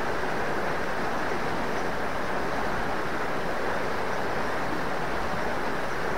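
Small river rushing fast over rocks, a steady, even roar of water.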